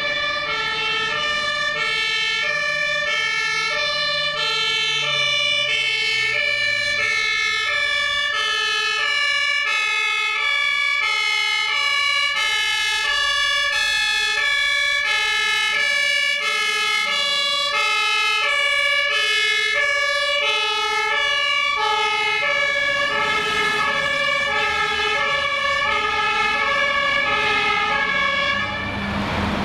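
German fire engines' two-tone Martinshorn siren, alternating high and low notes without a break as the trucks drive past. It stops near the end, leaving truck engine and road noise.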